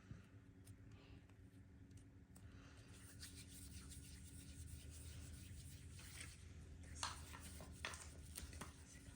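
Faint rubbing and scraping from handling candy and slime, with a few light clicks near the end.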